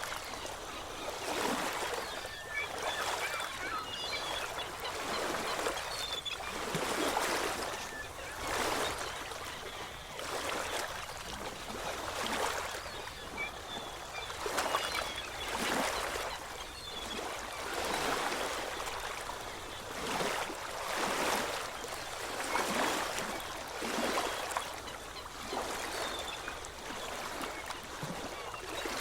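Sea waves washing in and drawing back, a steady run of surges swelling and fading every second or two.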